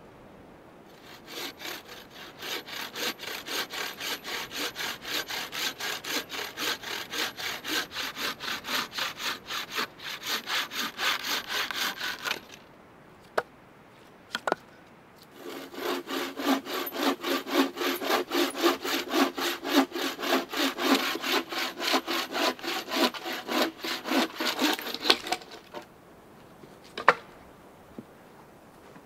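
Handmade bowsaw cutting through a wooden log in two long runs of quick, even back-and-forth strokes, with a pause between them. A few short knocks fall in the pause and near the end.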